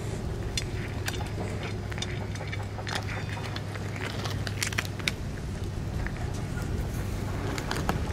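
A cat chewing and licking up grilled bonito and chicken pieces from a metal bowl: many small irregular wet clicks and smacks, with a steady low hum underneath.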